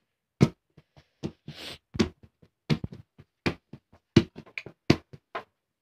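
A new Nivia Shining Star football being thumped by hand against a hard floor as it is checked: six strong thumps about 0.7 s apart, with lighter taps in between.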